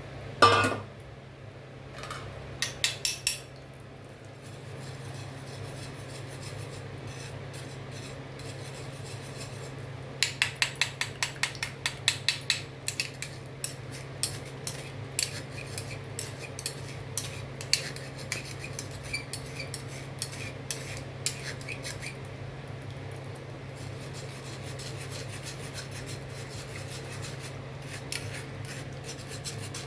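A metal kitchen utensil clinking and scraping against cookware: one loud clank about half a second in, then runs of quick clicks, about four or five a second in the middle, thinning out over several seconds. A steady low hum lies underneath.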